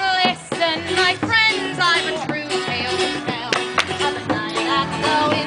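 Live singing of a tavern song, voices with instrumental accompaniment.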